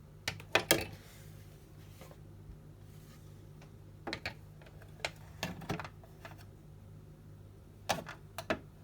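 Plastic clicks and knocks from the bottom compartment door of a Miele T250C tumble dryer being fitted and pushed shut: a loud cluster about half a second in, then scattered single clicks and another cluster near the end. A faint steady low hum runs underneath.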